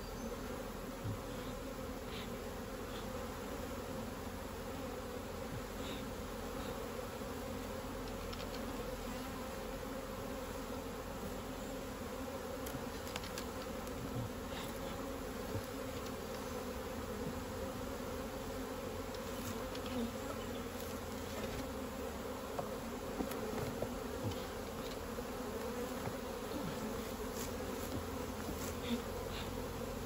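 A crowd of honeybees buzzing in a steady hum as they fly around an opened, smoked hive, with a few faint clicks here and there.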